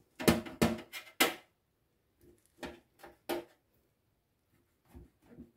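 Kitchen knife chopping through a rolled flatbread beyti wrap, the blade knocking on a metal baking tray at each cut. Four quick chops come in the first second or so, three more follow a moment later, and fainter ones come near the end.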